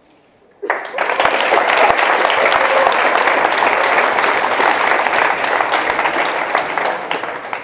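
Audience applauding: a dense, even clatter of many hands clapping that starts about half a second in, holds steady, and dies away near the end.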